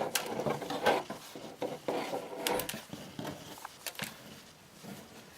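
Plastic toy packaging and twist ties being handled and shuffled: irregular clicks, crinkles and rustles, loudest near the start and dying down toward the end.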